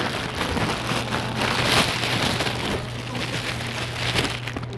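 Dense crackling rustle of a phone being handled, with fingers rubbing close to its microphone, over a steady low hum.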